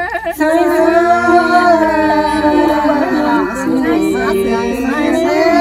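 Unaccompanied folk singing: a voice holding long, drawn-out phrases whose pitch bends and wavers. It is part of a Thái farewell song.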